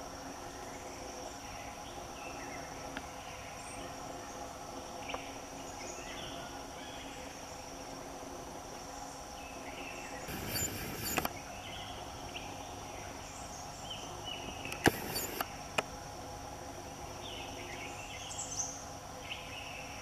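Forest ambience: a steady high-pitched insect drone, with scattered short bird calls over it. Two brief noisy bursts come about ten and fifteen seconds in, the second the louder.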